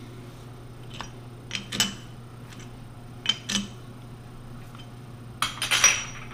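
Steel T-handle chuck key clinking against a lathe chuck as it is fitted into the sockets and turned to tighten the jaws on a steel rod. Short sharp metallic clicks come in small groups, with the loudest cluster near the end, over a steady low hum.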